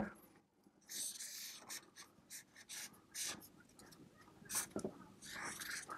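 Felt-tip marker drawing on flip chart paper: a series of short, faint scratching strokes with brief pauses between them.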